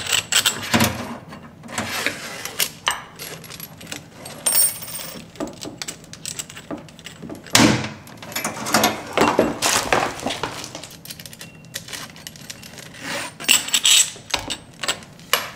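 Irregular metallic clinks and rattles from handling a new stainless-steel kitchen faucet and its braided steel supply hoses, as the screw cap and rubber washer are worked off its threaded shank. A louder clatter comes just before the middle.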